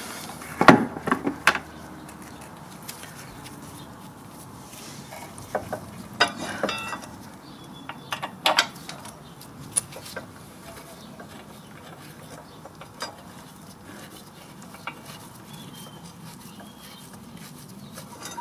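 Sharp metal clinks and knocks as a rebuilt Honda CB400N front brake caliper is handled and fitted back onto the fork leg over the disc. A quick cluster of clinks comes about a second in, more around six and again near nine seconds, then only a few lighter ticks.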